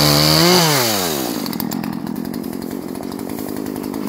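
Poulan 3314 two-stroke chainsaw running at full throttle. About half a second in the revs rise briefly, then fall away as the throttle is released, and the saw idles for the rest.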